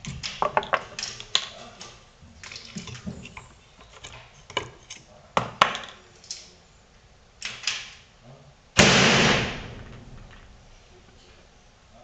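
Clicks, taps and knocks of a small replica naval cannon and tools being handled on a wooden bench. About nine seconds in, a sudden loud bang with a noisy tail that fades over about a second.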